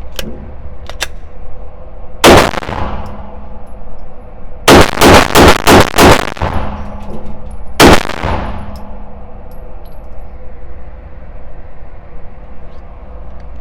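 Glock 34 Gen 5 9mm pistol firing seven shots: a single shot, then a quick string of five about two and a half seconds later, then one more, each trailing off with echo.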